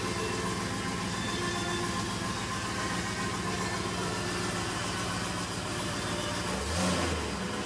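Porsche 928 S2's V8 idling steadily, with a brief change in its low note about seven seconds in. The alternator is not charging, so the engine runs on a draining battery with the electrical loads switched on.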